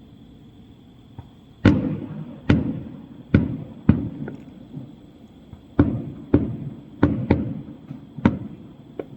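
Aerial fireworks shells bursting in quick succession: about nine sharp booms at irregular intervals, each trailing off in a rumbling echo, over a faint steady high-pitched hum.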